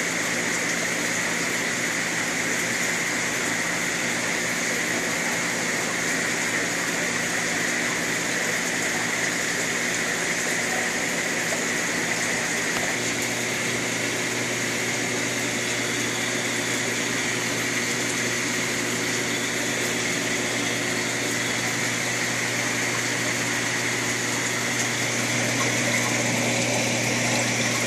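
Steady rush of running water with the low hum of pumps from a room of goldfish tank filtration, unbroken throughout; the hum grows a little stronger about halfway through.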